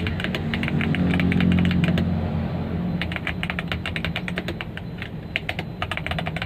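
Typing on a CIY 68 mechanical keyboard with Aflion switches and Cherry-profile keycaps: a rapid run of key clacks that thins for a moment about two seconds in, then picks up again.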